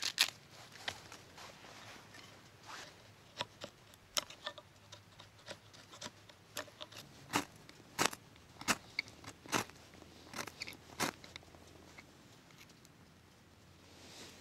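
Irregular sharp snaps and crackles of dry twigs and leaves as kindling is handled and lit, a dozen or so, most of them in the second half.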